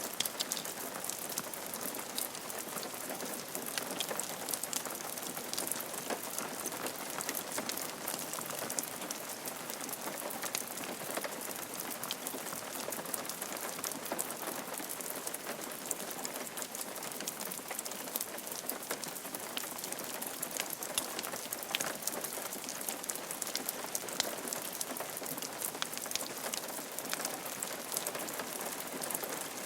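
Rain falling steadily on a roof: a constant hiss with many fine, close drop ticks.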